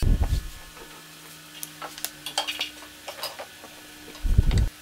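Cut pine wood parts being handled and set on a wooden workbench: a heavy knock at the start and another about four seconds in, with light taps and clicks of wood on wood between them.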